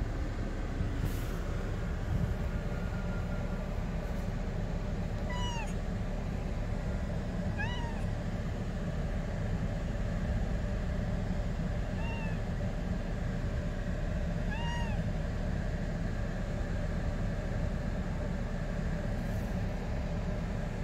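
Persian cat giving four short meows, each rising and falling in pitch, a couple of seconds apart, over the steady low rumble inside a car.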